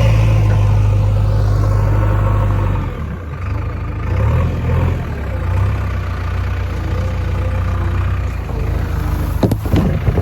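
Diesel engine of a backhoe loader or tractor running steadily, its sound dropping and shifting about three seconds in, with a few sharp clanks near the end.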